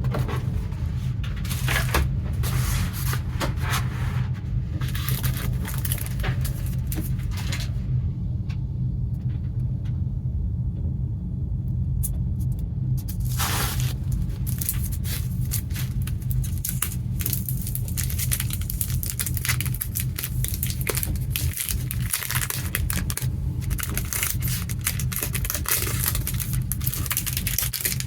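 Packaging handled by hand: irregular crinkling, tearing and scraping of plastic wrap and card, with a quieter stretch about a third of the way through. A steady low hum runs underneath.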